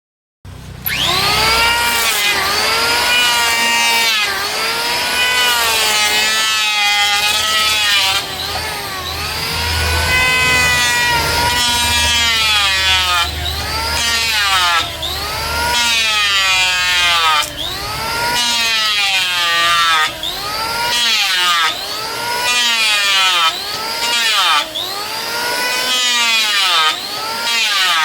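Electric woodworking power tool running as it works wood; its motor whine starts about a second in and swells up and down in pitch over and over, about once every one to two seconds.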